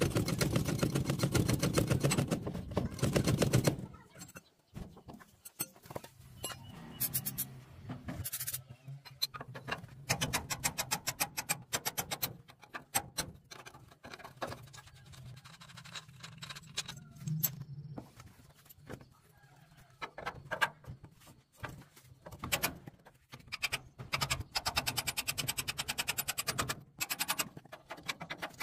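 Hand-tool work on a thresher's wheel: scattered metal clicks, scrapes and knocks. A loud rapid rattling fills the first few seconds, and a run of fast clicking comes near the end.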